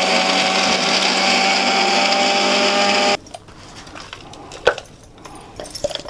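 Electric mixer grinder running with its stainless-steel jar dry-grinding fox nuts (makhana), a steady motor whine that cuts off suddenly about three seconds in. A few light metal knocks follow as the steel jar is tipped over a steel plate to empty the powder.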